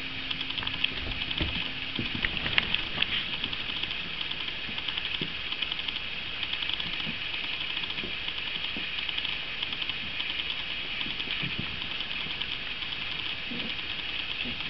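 Staffordshire bull terrier mother and pups play-fighting on carpet: faint scuffles and soft thumps scattered through, over a steady high hiss.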